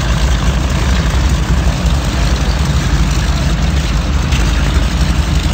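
North American T-6 Texans' nine-cylinder Pratt & Whitney R-1340 radial engines running at low taxi power, one taxiing close past; a steady, heavy low rumble.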